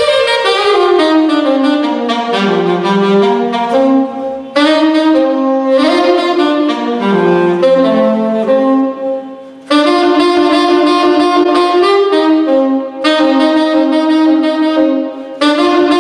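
A solo jazz horn improvising a slow, free melody in several phrases. The phrases start high and wind down to low notes, with short pauses for breath about four and a half, ten, thirteen and fifteen and a half seconds in.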